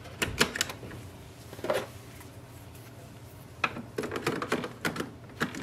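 Plastic clicks and knocks of Epson 822 ink cartridges being handled and set into the WorkForce Pro WF-4830's print-head carriage, each pressed down until it locks. A few separate clicks come near the start, then a quick run of clicks over the last two seconds as the yellow cartridge goes in.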